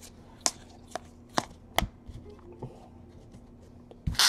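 Trading cards handled and tapped down on a tabletop: a run of short sharp taps about every half second, then a few faint shuffling sounds and a louder crackling burst about four seconds in.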